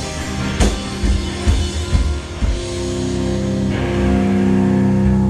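Live rock band playing electric guitar, keyboard and drum kit. The drum hits stop about two and a half seconds in, and a held chord rings on, growing a little louder near the end.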